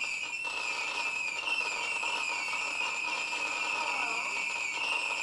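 Firework cake of screaming shots firing, a continuous high wavering whistle from many shots at once, heard through a television speaker.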